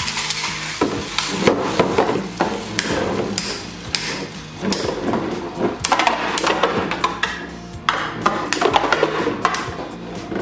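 Infinity Nado metal-rimmed spinning tops spinning in a plastic stadium, knocking against each other and the arena walls in a dense run of sharp clacks and clatters.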